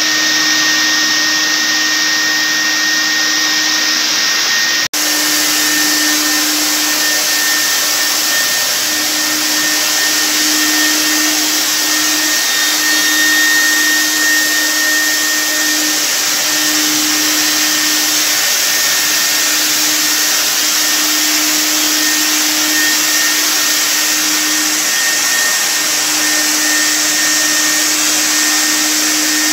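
Handheld electric cold fogger (ULV disinfection sprayer) running continuously, its motor and fan giving a steady loud blowing noise with a constant hum and whine as it sprays a fine mist. The sound breaks off for an instant about five seconds in, then carries on unchanged.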